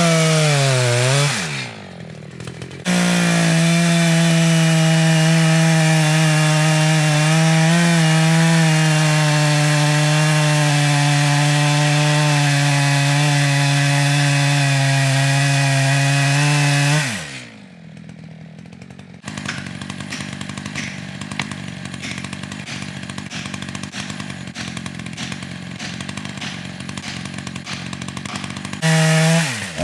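Chainsaw held at full throttle, cutting through a tulip poplar trunk at a steady high pitch. About 17 s in the revs fall away, and a rougher, fainter sawing noise without a clear pitch follows before full revs return near the end. The owner says the chain is really dull.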